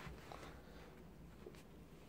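Near silence: room tone, with a few faint soft ticks of paper being handled as the origami is folded.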